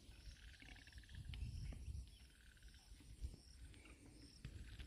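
Faint chorus of small calling creatures by the water: a short high chirp repeating about twice a second, and a buzzy, finely pulsed trill that comes and goes a few times, over a low rumble.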